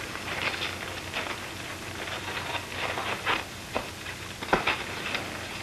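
A steady hiss with scattered, irregular short clicks and crackles, the surface noise of an old 1930s film soundtrack.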